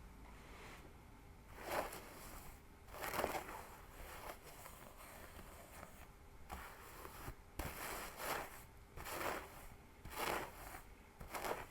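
Fingers scratching a scalp and pulling through hair, close to the microphone: a series of short, scratchy rustling strokes, roughly one a second, with a quieter stretch midway.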